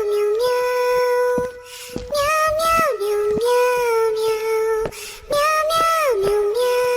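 High-pitched cartoon cat voice singing long drawn-out notes: each phrase bends down and then holds steady, repeating about every three seconds, with short clicks between phrases.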